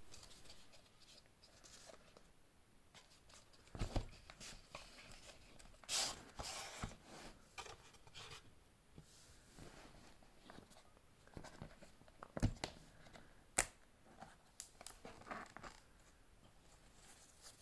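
Hands opening a watch's packaging: paper and cardboard rustling and scraping, with scattered sharp knocks and clicks, the loudest about twelve and thirteen seconds in.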